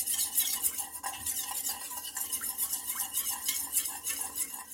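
Spoon stirring and whisking an oil and balsamic vinegar marinade in a stainless steel bowl: quick, even strokes of metal against the bowl, stopping suddenly at the end.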